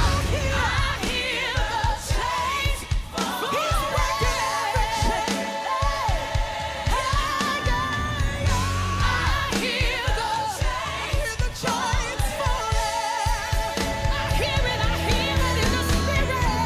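A song with a sung lead voice over a steady beat and bass, playing without a break.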